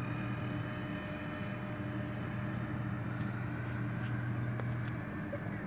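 Electric ducted fans of a radio-controlled Airbus A320 model airliner in flight, a steady distant drone.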